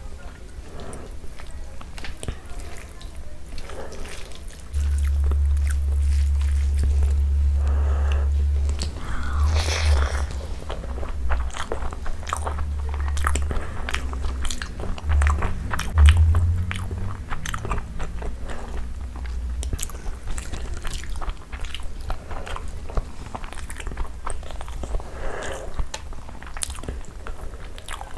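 Close-miked eating sounds of a person chewing rice and chicken curry with a full mouth: wet chewing, lip smacks and many short clicks. A low hum sits underneath from about five seconds in until about twenty seconds.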